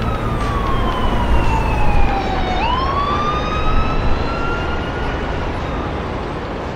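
Police car siren wailing over street traffic noise: one slow falling sweep, then a sharp rise about two and a half seconds in that keeps climbing slowly.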